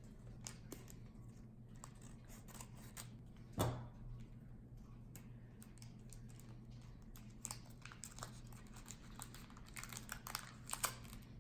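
Pokémon booster pack wrapper being torn open and handled: faint crinkling, tearing and small rustles, with a louder rustle about three and a half seconds in and a cluster of crinkles near the end.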